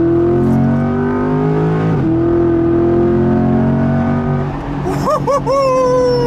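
Chevrolet Corvette C8 Stingray's 6.2-litre V8, through an ARMYTRIX valvetronic catback exhaust, heard from inside the cabin while accelerating. The engine note climbs in pitch, drops at an upshift about two seconds in, then climbs again and levels off.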